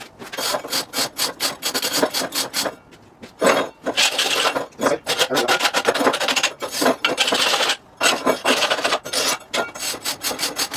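Hand wire brush scrubbed back and forth over a flux-core weld bead in quick repeated strokes, cleaning off slag and spatter. The brushing pauses briefly about three seconds in and again near eight seconds.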